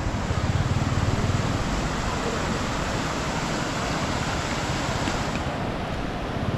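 A motor vehicle's engine running, with wind rushing over the microphone.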